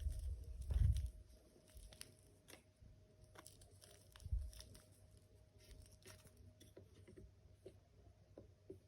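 Scattered light clicks, taps and rustles from handling small plastic containers of slime materials, with dull bumps about a second in and again about four seconds in.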